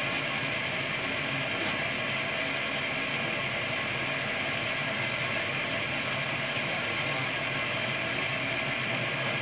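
Teletype printing terminal running with a steady mechanical hum; no separate print strokes stand out.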